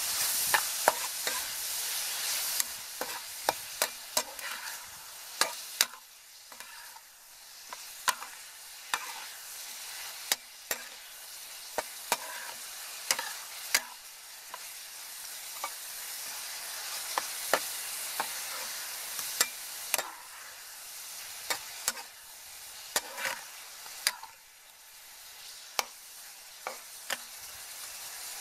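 Whole shrimp sizzling in oil in a frying pan while a metal spatula stirs and turns them, with sharp irregular clicks and scrapes of the spatula against the pan. The sizzle is strongest in the first couple of seconds, then settles lower.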